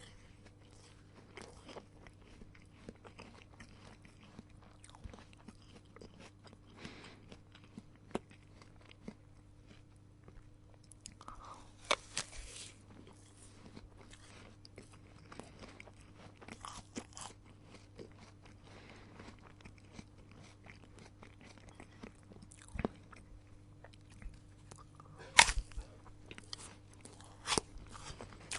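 A person biting into and chewing crisp raw produce close to the microphone: a run of small wet crunches, with a few louder bites about twelve seconds in and twice near the end. A steady low hum runs underneath.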